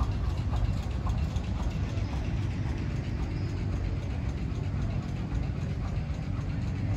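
Antique tractor engines idling: a steady low engine sound with faint ticking.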